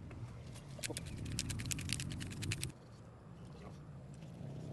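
Rapid crackling and popping, about ten ticks a second over a low rumble, from a cast iron skillet of sauce cooking over a wood-burning firebox. It cuts off sharply about two-thirds of the way through and gives way to a quieter stretch as a knife slices a steak on a wooden board.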